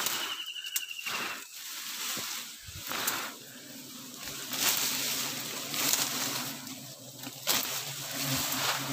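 Leaves and brush rustling in repeated surges as they are pushed and swished aside, with a steady low buzz of wild honeybees from about three seconds in, and a short high trill near the start.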